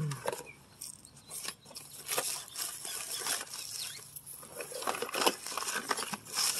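Rustling of cardboard and paper, with light knocks and clicks, as hands sort through a cardboard box of old boxed spare parts.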